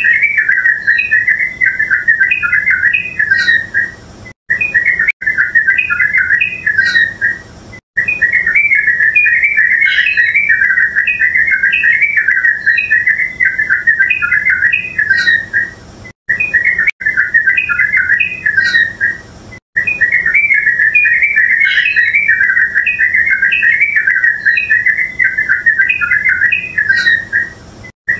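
Yellow-vented bulbul calling: a continuous bubbly chatter of quick whistled notes, broken by a few brief pauses.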